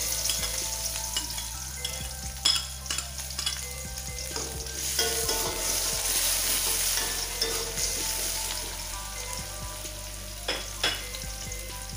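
Sliced shallots sizzling as they fry in hot oil in a wok, with a steady hiss throughout. A few sharp clicks and scrapes come from a metal spatula stirring against the pan.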